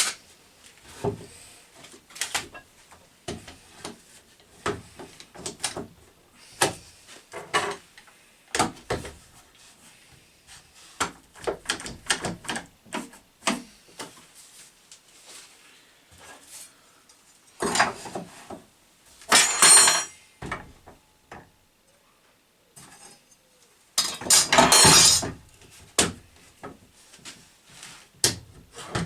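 Workshop handling noises: scattered knocks, clicks and scrapes of timber and tools being moved and set up, with a few louder short noisy bursts, the longest lasting about a second and a half near the end.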